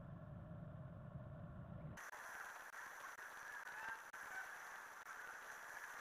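Faint steady hum from the nest-box camera's microphone, switching abruptly about two seconds in to a steady hiss with a few faint bird calls from outside the box.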